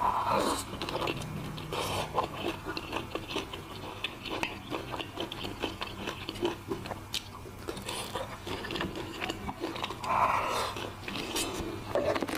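Close-up biting and chewing of crispy fried pork in sweet-and-sour sauce (guobaorou), with crunchy mouth clicks throughout and louder moments at the start and about ten seconds in.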